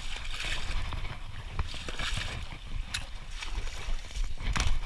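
Someone wading through a shallow stream and then pushing on through thick weeds: splashing steps and swishing vegetation with a few sharp knocks, over a constant low rumble of handling and wind on a body-worn camera's microphone.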